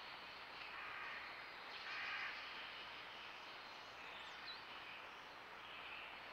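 A crow cawing three times, with a short high chirp from a small bird about four seconds in.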